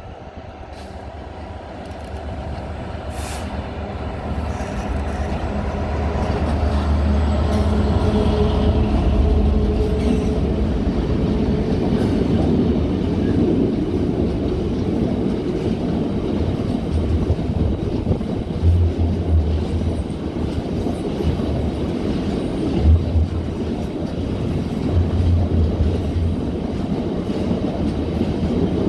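Freightliner Class 66 diesel locomotive passing, its engine rumble growing louder over the first several seconds as it approaches and goes by. A long rake of open box wagons follows, rumbling steadily with repeated clatters as wheels cross rail joints.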